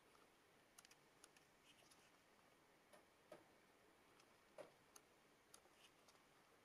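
Very faint paper handling as the pages of a small paperback book are turned by hand: scattered soft flicks, clicks and rustles. The clearest two page turns come about three and four and a half seconds in.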